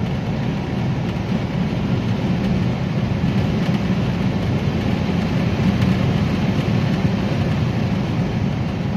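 Hyundai Grand i10's freshly overhauled 1.2 Kappa VTVT four-cylinder petrol engine pulling under acceleration at about 3000 rpm, mixed with steady tyre and wind noise, heard inside the car's cabin. The sound holds steady with no knocks or misses.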